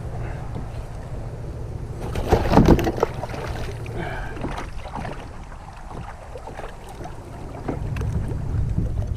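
Wind rumbling on the microphone on a kayak, with a louder burst of knocks and clatter about two seconds in.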